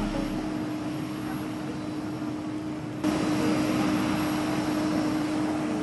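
Steady hum and whine of a parked jet airliner on the apron, a dull rushing noise with a held low tone, stepping up in level about three seconds in.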